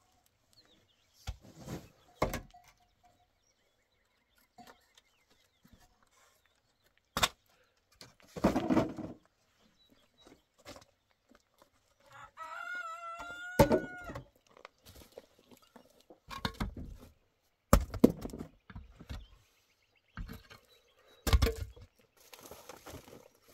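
Scattered knocks and thuds of concrete blocks and wooden pallets being shifted, the loudest sounds. About halfway through, a rooster crows once, a single call of about two seconds that rises and then falls.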